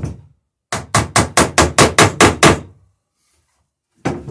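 A hammer peening copper rivets on boat planking: one knock, then a quick run of about a dozen metallic blows at roughly six a second, and one more knock near the end.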